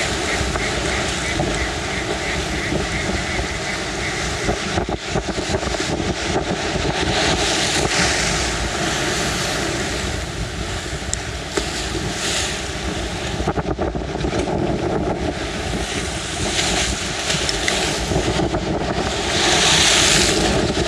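Strong sea wind buffeting the microphone over waves washing in, with several louder surges, the strongest near the end.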